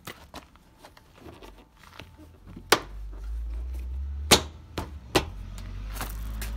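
Plastic front bumper corner being pressed onto the car's front fender by hand: two sharp snaps about one and a half seconds apart, then two lighter clicks, as the bumper edge clips into place. A low steady rumble runs underneath.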